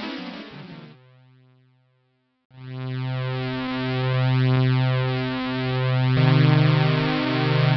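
Synthesizer music. A phrase fades out within the first second, then after a short gap a held chord over a low bass line that moves in steps comes in about two and a half seconds in.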